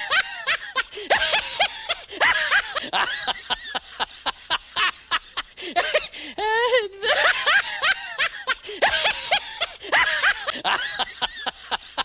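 Looped laughter sound effect: rapid, high-pitched snickering and giggling. The same stretch of laughter repeats about every eight seconds.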